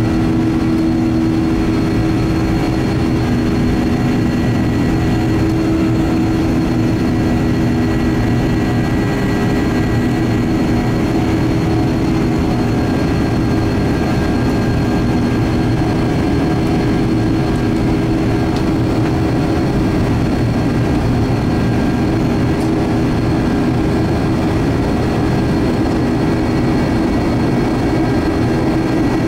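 Steady cabin noise of a Boeing 737-800 climbing after take-off: the drone of its CFM56-7B turbofan engines and the rush of air past the fuselage, with a low hum of a couple of held tones.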